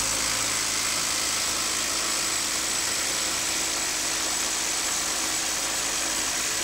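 Hyper Tough 12-volt brushed cordless impact driver hammering steadily under load as it drives against a pressure test rig.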